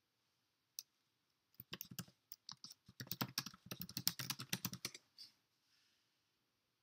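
Typing on a computer keyboard: a single click, then a quick run of keystrokes lasting about three seconds.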